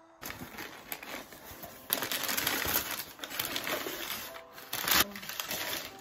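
Brown kraft packing paper rustling and crinkling as it is pulled out of a cardboard shipping box, with louder bursts about two and five seconds in.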